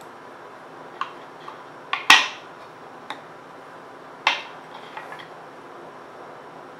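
Steel scissors clicking and clinking while trimming thread on a rod wrap: a scatter of sharp metallic clicks, the loudest about two seconds in and another strong one just after four seconds, with a few smaller ones around five seconds.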